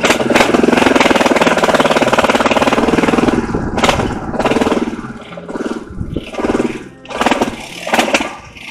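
ATV or side-by-side engine revving hard and close for about three seconds, then surging up and down in short bursts of throttle.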